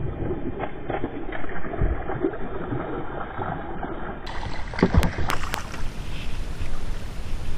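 A hooked bass thrashing and splashing at the water's surface beside a small boat, with a few sharp knocks about five seconds in.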